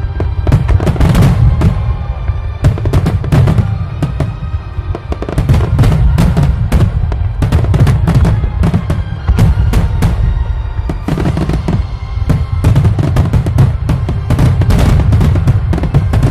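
Fireworks bursting in a rapid, irregular string of bangs with a deep rumble underneath, over music with steady sustained notes.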